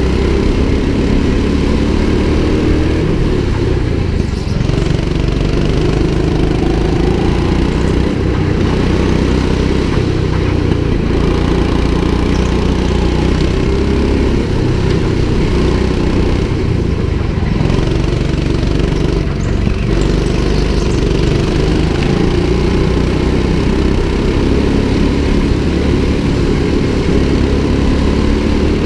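Small petrol go-kart engine running under load, its pitch rising and falling as the kart speeds up and slows through the corners, with other karts' engines close by.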